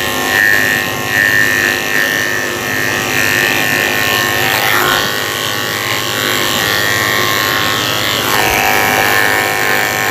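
Electric dog grooming clippers running steadily as they shave a Yorkshire terrier's coat.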